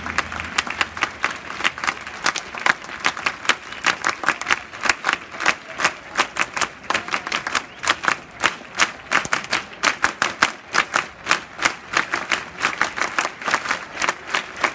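Close-by hand clapping in a steady rhythm, about four claps a second, over the applause of a stadium crowd.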